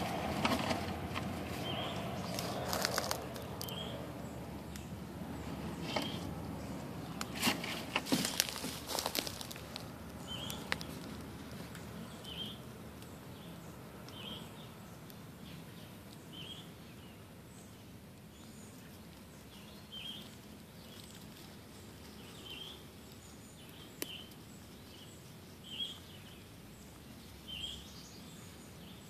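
Dry leaf litter rustling and crackling for roughly the first ten seconds, loudest about eight seconds in. A short high chirp repeats every one and a half to two seconds over a steady outdoor hush.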